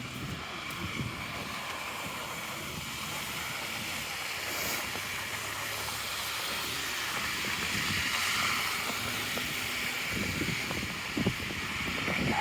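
Steady hiss of wind and car tyres on slushy snow-covered streets, swelling a little around the middle, with a few footsteps crunching in snow near the end.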